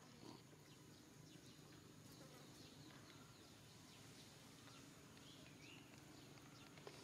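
Near silence: faint outdoor background with a steady, low insect buzz.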